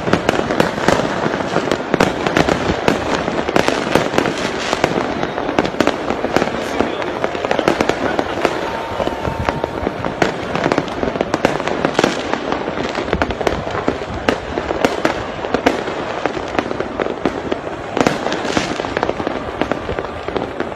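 Firecrackers and fireworks going off all across a city in a continuous crackle, with sharp bangs every second or so. Voices can be heard underneath.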